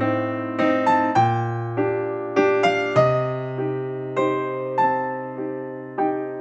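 Background music: a slow, gentle melody of struck notes, about one every half second, each fading away, over longer-held bass notes.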